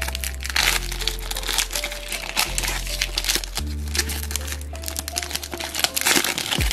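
Foil wrapper of a 2022 FIFA World Cup Prizm trading-card pack crinkling as it is torn and peeled open by hand, a dense run of crackles, over background music with held bass notes.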